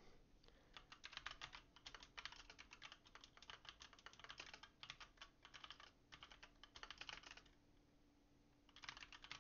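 Faint typing on a computer keyboard: a long run of quick keystrokes, a pause of about a second, then another short run near the end.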